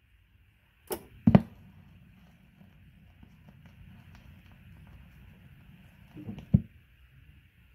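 Two clicks about a second in as the JVC QL-F320 turntable's stylus is set down on the record, then faint groove noise with light ticks of surface crackle, and a sharper knock near the end as the fully automatic tonearm lifts to return.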